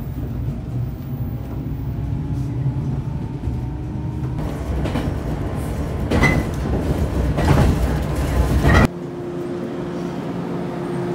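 Train running, heard from inside the carriage: a steady low rumble that grows louder and noisier after about four seconds, with brief high squeals. It cuts off abruptly near nine seconds to a quieter steady hum.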